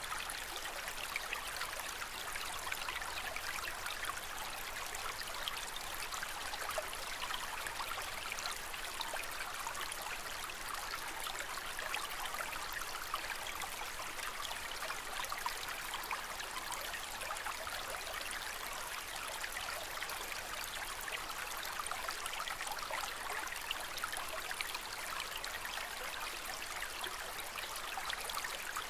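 Aquarium water trickling and splashing steadily, a continuous fine patter of moving water.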